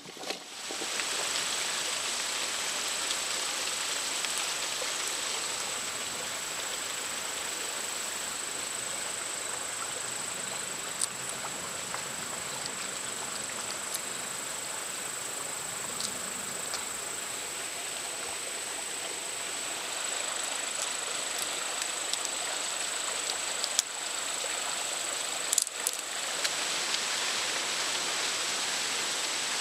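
Food sizzling steadily in a hot pan, the sizzle starting suddenly about half a second in, with a thin high whine over it and a few light clicks.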